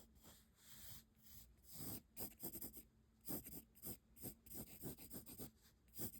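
Graphite pencil scratching on paper in short, quick strokes, faint at first and then in quick runs from about two seconds in.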